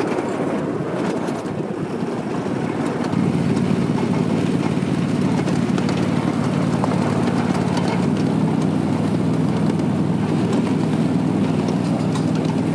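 A 7.5-inch-gauge ride-on miniature train running along the track, with a steady low drone from its locomotive and noise from the wheels on the rails. It gets louder about three seconds in.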